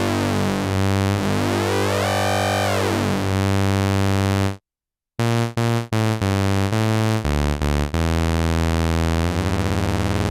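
Modal Electronics Cobalt8 virtual analog synthesizer playing short examples of its complex oscillator algorithms: held low notes whose tone sweeps and morphs, a brief break about four and a half seconds in, then a run of short separate notes and a held note with a fast wobble near the end.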